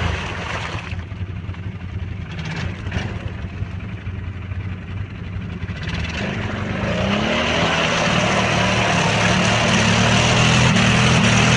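Arctic Cat 1000 ATV engine running at low revs, then revving up about six seconds in and held at high revs under load, pushing through heavy mud with the differential locked.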